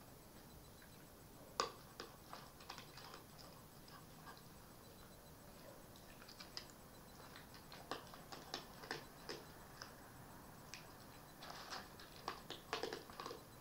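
Red fox eating from a bowl: faint, irregular crunching and clicking chews in clusters, the sharpest click about one and a half seconds in.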